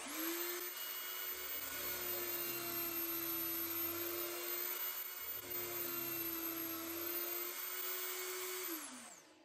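Electric drill mounted in a drill press stand starts up and runs steadily with a high whine, boring two holes into plywood, each marked by a spell of low rumble as the bit cuts. Near the end the motor is switched off and winds down, its pitch falling.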